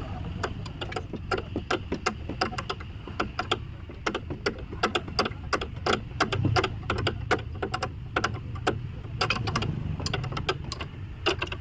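Rapid, irregular metallic clicking and ticking over a low steady rumble.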